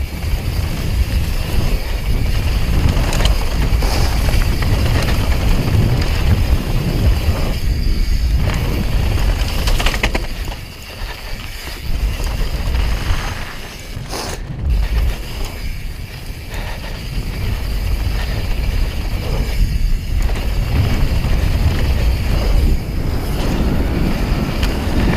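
Wind rushing over the camera microphone and the rattle of a downhill mountain bike running fast over a rough dirt trail, with a few brief dips in level.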